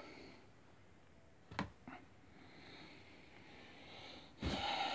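Quiet handling of packaging: a light tap about a second and a half in, then the cardboard box and the plastic wrapping around a new chainsaw start to rustle near the end.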